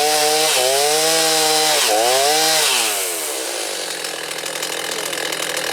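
Two-stroke chainsaw at high revs cutting a log, its pitch dipping twice as it bogs under load in the cut. About two and a half seconds in the throttle is let off and the engine winds down to a lower, quieter run.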